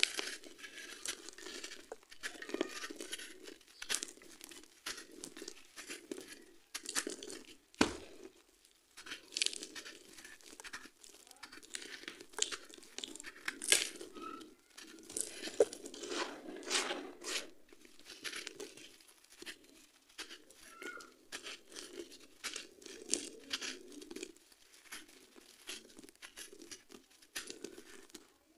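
Hands crushing and crumbling dry, gritty sand-cement lumps: irregular crunching and crackling of breaking grains and chunks, with one sharp knock about eight seconds in.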